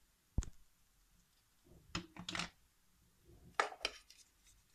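Small hard plastic toy figures clicking and knocking against a wooden shelf as they are set down and handled: a single knock about half a second in, then two short clusters of clatter.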